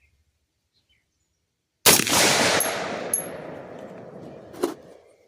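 A single rifle shot from an AR-15 with an 18-inch barrel in 350 Legend, about two seconds in, followed by a long echo that fades away over about three seconds. Two short high metallic pings come within a second after the shot, and a sharper click sounds near the end.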